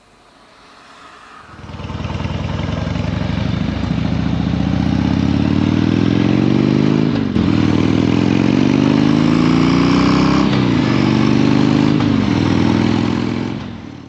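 Harley-Davidson Twin Cam 88 V-twin on a Dyna pulling away under throttle, its pitch climbing in each gear and dropping at three upshifts, about 7, 10½ and 12 seconds in. The sound fades out at the very end.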